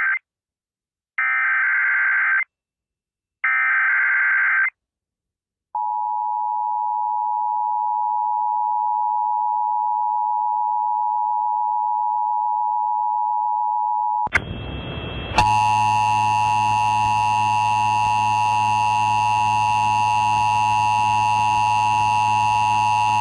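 Emergency Alert System test broadcast over FM radio: the end of the SAME header's screechy digital data bursts, two more short bursts, then the two-tone EAS attention signal, a steady dual tone held for about eight seconds. About 15 seconds in it changes to a buzzier steady tone with many overtones and a low hum beneath.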